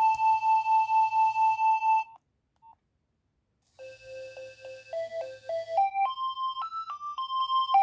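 Nokia 2300 ringtones: a single beeping tone repeating about four times a second stops about two seconds in; after a short silence another ringtone starts, a melody of stepped notes climbing in pitch.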